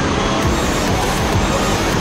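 Steady loud rushing of water pumped up the ramp of a standing-wave surf simulator, with music playing along with it.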